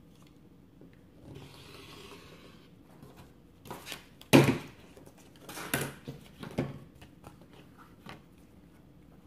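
Crafting supplies being handled on a cutting mat: a soft scraping rasp about a second in, then a few sharp clacks and knocks as the quilting ruler, fabric and sticky board are moved. The loudest knock comes about four and a half seconds in.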